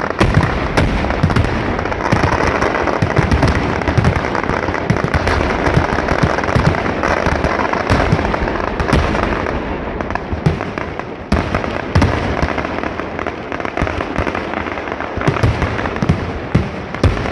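Fireworks and firecrackers going off in a loud, dense, unbroken barrage of bangs and crackling.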